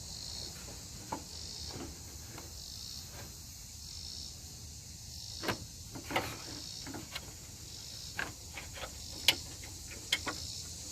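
Insects chirping in a steady pulsing rhythm about once a second over a constant high hiss, with a scattered handful of sharp clicks and taps from hand work on the truck's hood latch.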